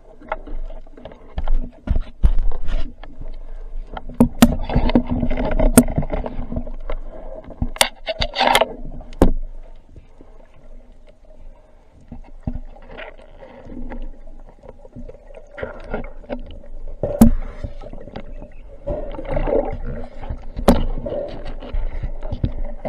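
Underwater sound picked up through a speargun-mounted camera's waterproof housing: scattered sharp clicks and knocks from the gun and housing being handled, over churning water noise and a faint steady hum.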